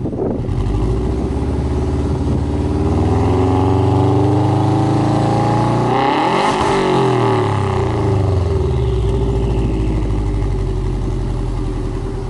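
Subaru Impreza WRX's EJ20 turbocharged flat-four being free-revved while parked, exhaust heard at the tailpipe: the engine note climbs slowly for about six seconds, peaks, then falls back over about five seconds.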